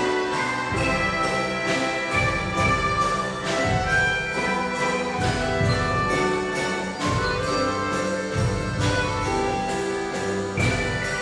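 A children's band of accordions with piano and percussion playing a piece together: held and moving melody notes over a steady drum beat.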